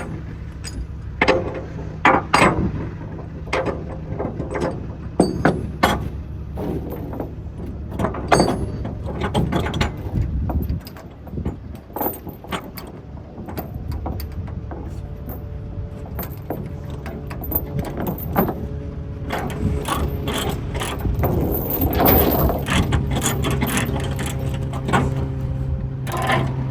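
Load-securement chains clinking and ratchet-type binders or straps clicking as cargo is tied down, in irregular sharp knocks and rattles, over a steady low hum.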